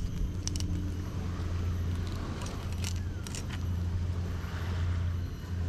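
A steady low motor hum, with a few short scrapes and ticks from a knife working along a filleted needlefish.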